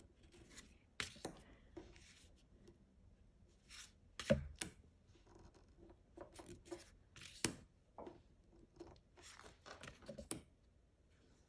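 Oracle cards being slid off a deck and laid on a wooden table: faint swishes of card rubbing on card with light taps, the two loudest about four and seven and a half seconds in.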